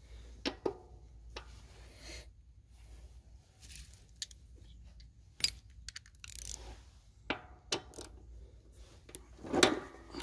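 Steel socket and extension clinking and tapping against the mower deck's spindle and its mounting bolts, in scattered sharp metal knocks with a louder burst of clatter near the end.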